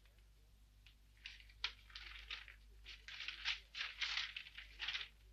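Newspaper being unfolded and opened by hand, the paper rustling in a string of short bursts from about a second in until near the end.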